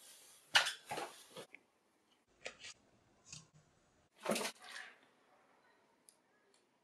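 A handful of short rustling, scuffling noises of people moving quickly. The loudest comes about half a second in, with smaller ones following and a faint click near the end.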